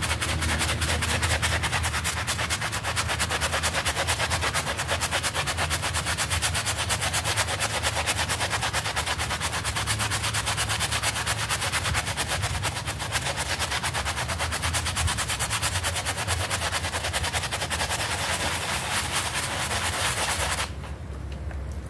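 Stiff plastic-bristled scrubbing brush working shampoo foam into a small carpet sample: fast, even back-and-forth rasping strokes. They stop abruptly about a second before the end.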